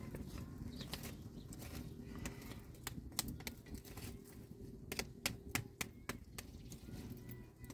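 Open wood fire crackling, with irregular sharp pops that come thickest in the middle, over a low steady rumble.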